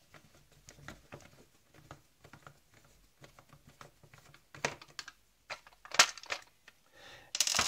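Hard plastic clicking and tapping as a coffee machine's plastic brew group is handled and turned over on a table, with a sharper knock about six seconds in and a short scrape near the end.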